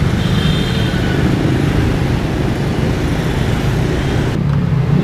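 Motorbike traffic passing on a busy street: a steady, loud rumble of small engines.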